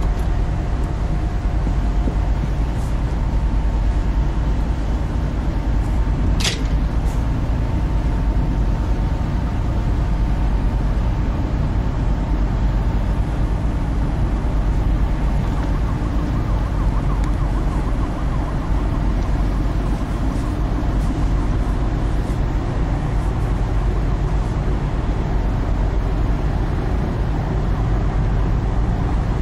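Steady low rumble of harbour and city background noise, with two faint steady tones for roughly the first third and a single short, high chirp about six seconds in.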